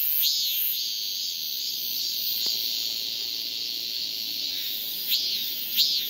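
Male robust cicada (Hyalessa fuscata) singing its calling song to attract a female: a rising-and-falling 'maem' note, then a long steady drone of about four seconds, and the separate 'maem' notes return near the end.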